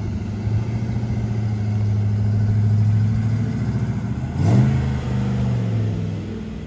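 Ford Mustang race car's engine running as it drives off, with a short rising rev about four and a half seconds in. The sound fades near the end.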